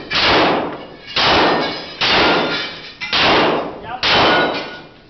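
Handgun fired five times in slow, steady succession, about a shot a second, each shot echoing loudly off the walls of an indoor range. A faint metallic ring follows some of the shots.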